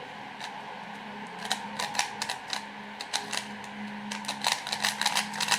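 Plastic clicking of a freshly lubricated 3x3 speed cube being turned by hand, irregular clicks growing quicker toward the end.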